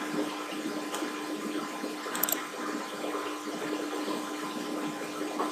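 Steady background hiss with a constant low hum, and a couple of faint clicks about one and two seconds in.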